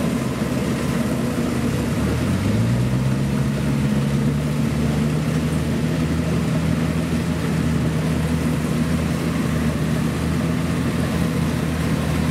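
Kubota DC-70 rice combine harvester's diesel engine running while it cuts rice, its pitch rising about two seconds in and then holding steady.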